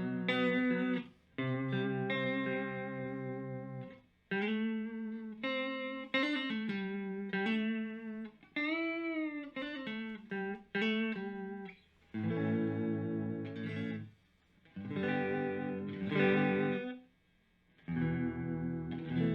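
Electric guitar played through a Moen Jimi Nova univibe-style chorus/vibrato pedal: chords and single-note phrases with short pauses between them. About nine seconds in, one note is bent up and back down.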